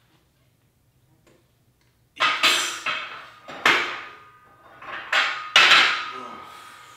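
Metal dumbbells clanking, about six loud clangs starting about two seconds in, the last one left ringing.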